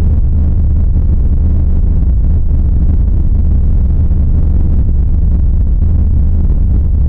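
Steady low rumbling drone of a creepy ambient sound effect, loud and unchanging, with a faint hiss above it.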